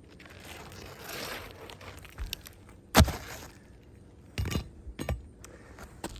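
An old, brittle asphalt shingle being worked loose on a roof: a stretch of scraping, then several sharp cracks and clicks, the loudest about three seconds in.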